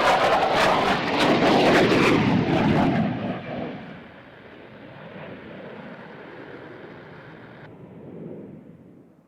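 Fixed-wing aircraft passing close, its engine roar loud for about three seconds, then dropping away and fading out.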